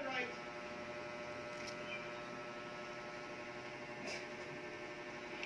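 Steady electrical hum made of several even, unchanging tones, with a couple of faint ticks.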